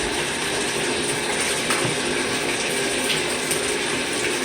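Tap water running steadily into a tub during a rinse, with a few faint knocks.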